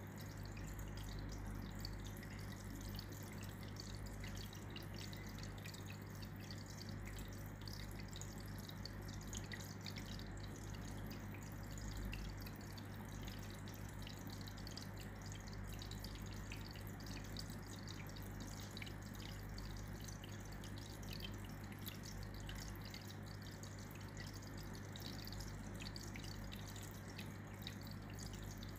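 Aquarium hang-on-back filter's outflow trickling and splashing into the tank water, a steady patter of small drips over a low hum.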